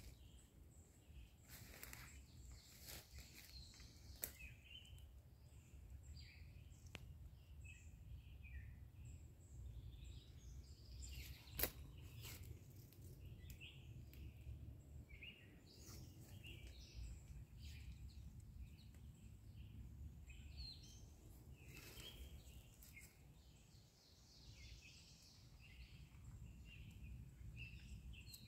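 Faint woodland ambience: small birds chirping now and then over a low steady rumble, with one sharp click near the middle.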